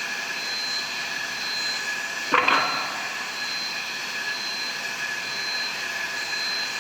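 Steady machinery noise of an aluminum ingot casting line, with a constant high whine, and one sharp knock about two and a half seconds in.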